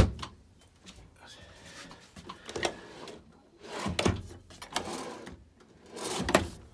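Wooden cabinet doors and a drawer of a 2011 Coachmen Apex travel trailer being shut and opened: a sharp knock at the start as a door closes, then scattered knocks, sliding and rustling, with louder knocks about four seconds in and again near the end.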